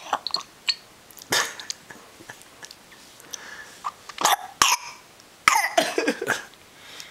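A baby coughing and spluttering in three short bouts while drinking water from a glass, with small clicks and lip smacks between.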